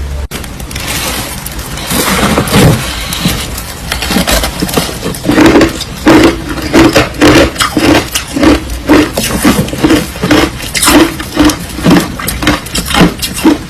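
Crushed ice being bitten and chewed close to the microphone: loud, crisp crunching, irregular at first, then settling about five seconds in into a steady chewing rhythm of two to three crunches a second.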